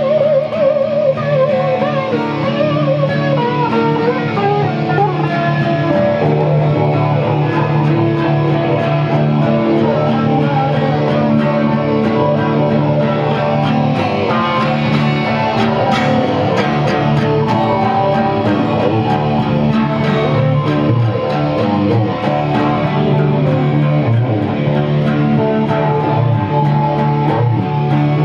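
Acoustic guitars strummed together in a steady run of chords, with low notes sounding underneath. A wavering held note fades out in the first few seconds.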